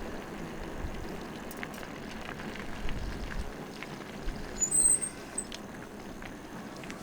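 Steady rumble of a fat-tyre electric bike rolling along, tyre and wind noise, with faint scattered ticks and a brief high squeak about five seconds in.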